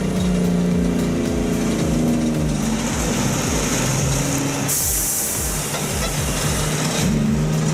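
Kenworth T659 log truck's diesel engine running under load, its note stepping down a little about three seconds in. A burst of air hiss, like an air brake, comes about five seconds in and lasts about two seconds.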